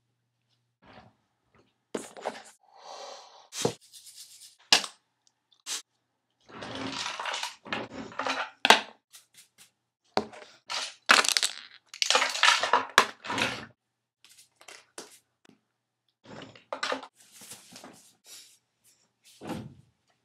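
Handling noises of a morning routine: a string of sharp clicks and knocks, with a few longer scratchy rubbing or scrubbing noises in the middle.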